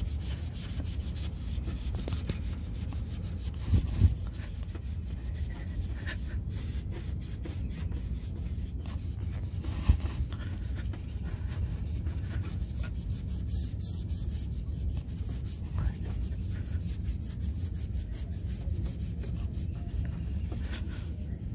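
Sponge applicator pad scrubbing scratch remover back and forth on a metal running board, a steady run of quick rubbing strokes. Two brief louder knocks break in, about 4 and 10 seconds in.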